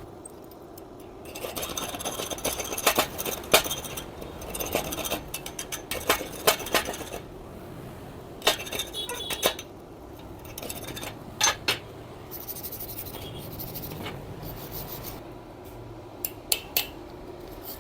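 Light metallic clinks and scraping from the freshly welded stainless steel pieces being handled, in irregular clusters with pauses.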